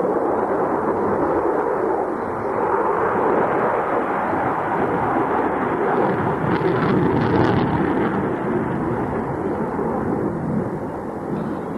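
Jet noise from a twin-engine jet fighter manoeuvring in an air display: a steady, loud rush of sound that swells briefly and turns harsher about six to eight seconds in.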